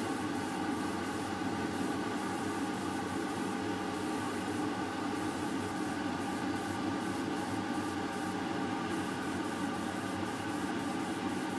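Gravity-feed spray gun hissing in many short bursts as it sprays paint, over the steady hum of a motor.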